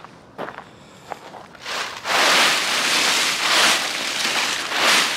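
A few footsteps on gravel, then from about two seconds in a loud, dense rustling and crackling of dry fallen leaves as a pile of them is stirred up and scattered into the air.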